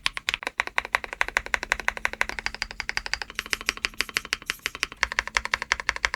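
Fast continuous typing on a Weikav Stars75 aluminium mechanical keyboard fitted with metal keycaps: a dense run of sharp key clacks, about ten a second, that stops suddenly.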